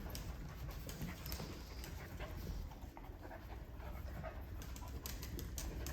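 Mini Australian Labradoodle panting softly.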